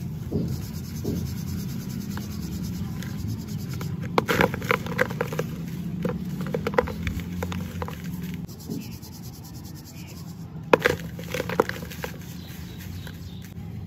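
A pressed block of dry sand being broken and crumbled by hand into loose powder, with soft crisp crunches in clusters about four seconds in and again about eleven seconds in, over a steady low hum.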